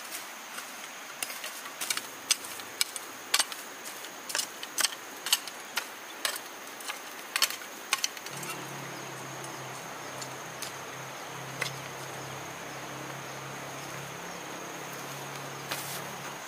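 Hand hoe scraping and chopping through ash-covered stony soil, sharp metallic clicks about twice a second that thin out to a few after about halfway. A steady high insect drone runs underneath.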